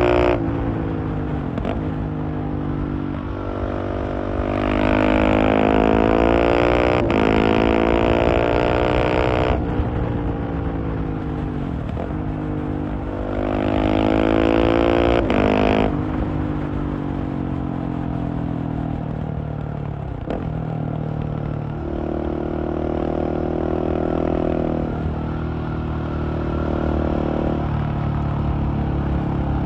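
Husqvarna 701's single-cylinder engine through a LeoVince Nero exhaust, accelerating hard twice with quick upshifts on the quickshifter that briefly drop the pitch, then falling off the throttle. Lighter, steadier throttle follows near the end.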